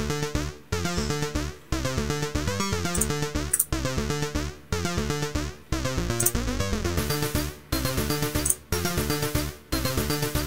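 Electronic music with a synthesizer riff over a steady beat, dipping briefly about once a second.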